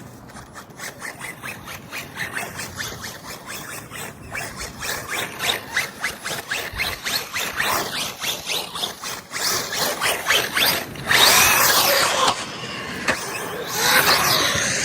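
Small RC crawler truck's brushed electric motor and gearbox whining as it is driven, with rapid clicking and scraping from the drivetrain and tyres, growing louder, with the whine rising and falling in loud bursts over the last few seconds.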